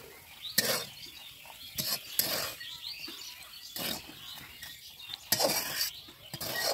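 Steel spatula scraping and clinking against a metal wok and a steel bowl as fried carrot, chilli and peanuts are scooped out, in about six separate strokes.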